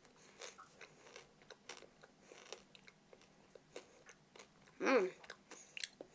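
Close chewing and crunching of a candy-shelled chocolate egg, with many small crunches throughout. A brief hummed vocal sound about five seconds in is the loudest thing.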